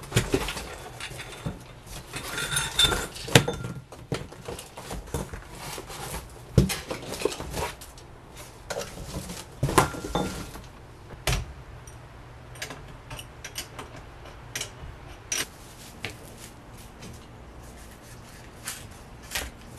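Metal parts of a Schwinn Meridian tricycle clinking and knocking and cardboard packaging rustling as the tricycle is unpacked and handled. The knocks come irregularly, thickest in the first half and sparser toward the end.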